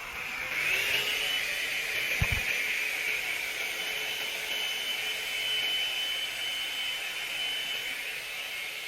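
Remington hot-air brush dryer switching on and running: its fan whine rises to a steady high pitch within the first second, over a rushing hiss of airflow. A brief low thump about two seconds in.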